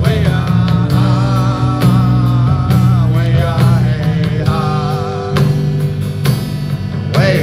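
Live rock band playing: electric guitar, bass guitar and drum kit under a male voice singing long, wavering held notes.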